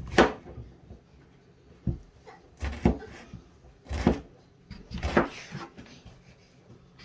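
Kitchen knife cutting through peeled potato onto a plastic cutting board: about five sharp knocks of the blade on the board, roughly a second apart.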